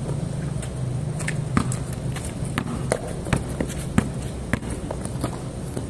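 Basketball bouncing on a concrete court with shoes scuffing and stepping on the concrete: a handful of sharp, irregularly spaced bounces about half a second to a second apart, among smaller clicks and scuffs.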